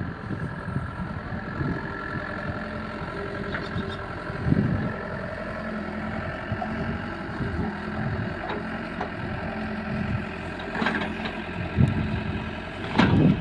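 Diesel engine of a backhoe loader running steadily, with a few heavy thuds and knocks, the loudest near the end.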